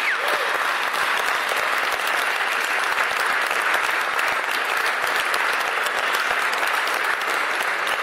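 Audience applauding steadily, a dense even clapping, with a short whoop right at the start.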